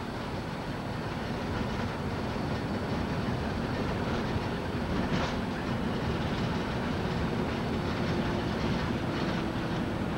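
Steady road and engine noise inside a moving car's cabin, a low rumble that grows a little louder over the first couple of seconds.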